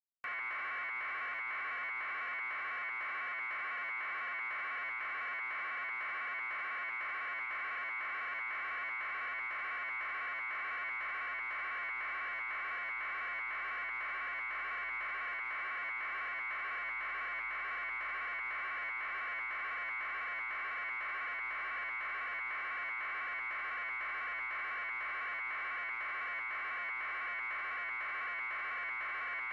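A steady, unchanging buzz with a fast, even pulse, held in a narrow mid-pitch band.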